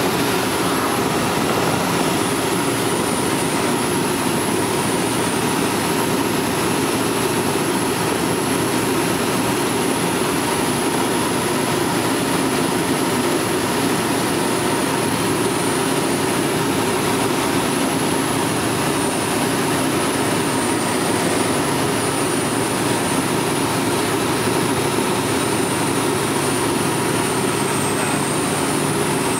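Steady drone of a Dynamic WT9 ultralight's engine and propeller, heard from inside the cockpit in flight, mixed with airflow noise and a thin high whine above it.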